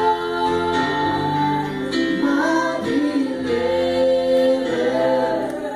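Church music: several voices singing long held notes over sustained chords.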